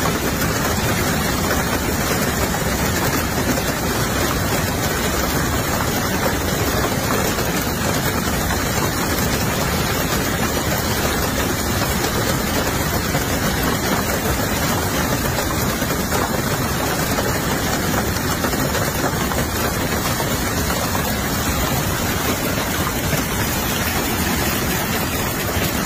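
Heavy hail and rain falling hard, a dense, steady, unbroken noise.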